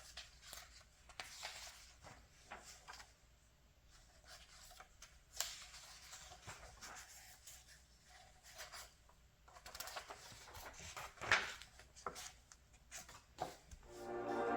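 Glossy magazine pages being handled and turned: faint paper rustling and light clicks, with a couple of sharper page flips. Music begins to fade in near the end.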